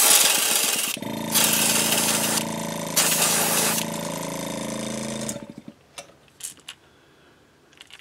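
Airbrush spraying paint in three hissing bursts, the first right at the start, the others about one and a half and three seconds in. About a second in, a small air compressor's motor starts running with a steady hum and cuts off a little past five seconds, leaving a few faint clicks.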